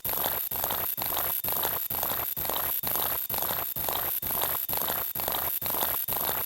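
A looped sound effect: an even, noisy pulse about twice a second with a steady very high tone above it. It starts and cuts off abruptly, swapped for a different sound.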